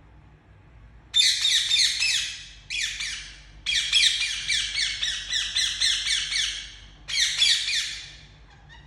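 Indian ringneck parakeet giving very loud, rapid, repeated chirping calls. The calls start about a second in and come in four bursts, the longest in the middle.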